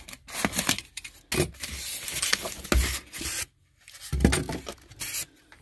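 Utility knife scraping and cutting through plastic wrap on a styrofoam shipping box, then the styrofoam pieces rubbing and scraping as the box is pulled open, in irregular strokes with a brief pause partway through.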